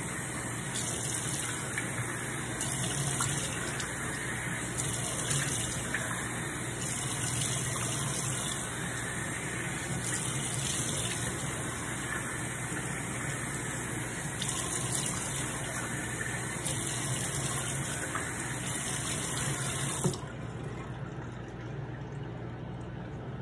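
Bathroom sink tap running while water is splashed onto the face to rinse off soap, the flow surging every couple of seconds. Near the end the tap is shut off with a sharp click, and the running water stops abruptly.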